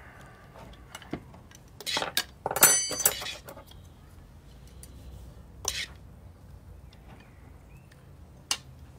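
Serving utensils clinking and scraping against a bowl and plates as slaw is dished out: a cluster of clinks about two to three seconds in, one of them ringing, then single clicks near the middle and near the end.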